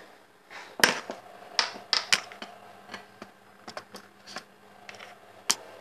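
Irregular knocks and clatters of kitchen things being handled and set down around a gas stove. The loudest knock comes about a second in, a cluster of sharper clicks follows around two seconds, and another knock comes near the end.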